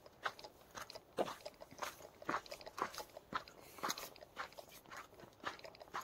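Footsteps crunching on a frosty gravel path at an even walking pace, about two steps a second.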